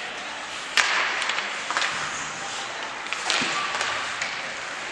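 Ice hockey play: skate blades scraping the ice, with several sharp clacks of sticks and puck, the loudest about a second in.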